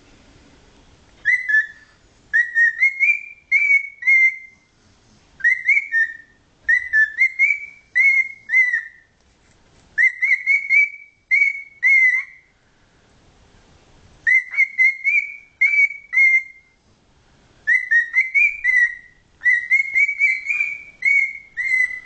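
Cockatiel whistling a tune: clusters of short, slightly rising whistled notes, phrase after phrase with brief pauses between.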